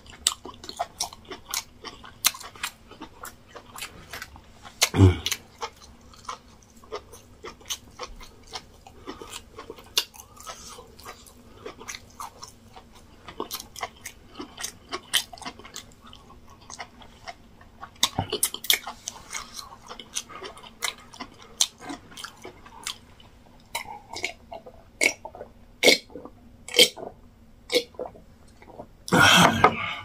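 Close-miked wet chewing and lip-smacking of soft yam fufu with egusi soup eaten by hand, with many sharp, irregular smacks and a single low thump about five seconds in. Near the end, a loud crackling rustle as a plastic water bottle is grabbed.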